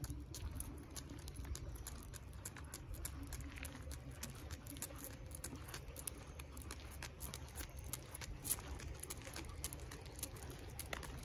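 Cavalier King Charles Spaniel's claws clicking on asphalt as it walks: a quick, irregular patter of light ticks over a low steady rumble.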